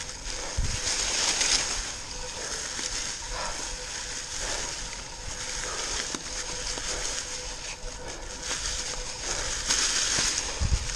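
Mountain bike tyres rolling over a thick layer of dry fallen leaves: a continuous crunching rustle that swells and fades, with a couple of low thumps from bumps in the trail.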